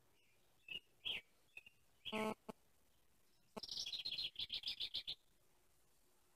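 Small bird calling: a few short, high chirps, then a rapid twittering run of high notes lasting about a second and a half.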